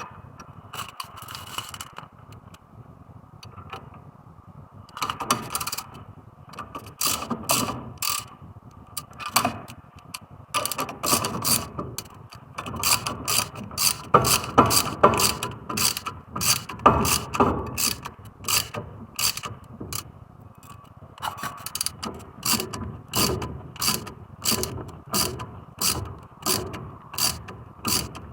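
Hand socket ratchet clicking as it turns a bolt on the car's front wheel or brake, in runs of quick clicks that settle into an even back-and-forth stroke of about one and a half strokes a second near the end.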